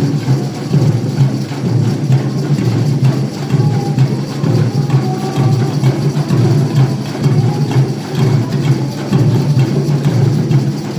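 A live band playing, with steady drum beats over a heavy bass.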